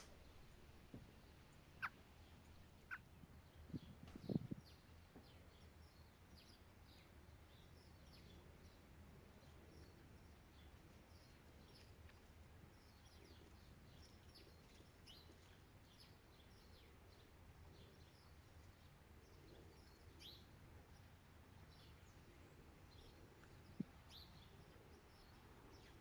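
Faint, distant bird chirping, many short high calls, over a quiet outdoor background. A few sharp clicks or taps come in the first few seconds, the loudest about four seconds in.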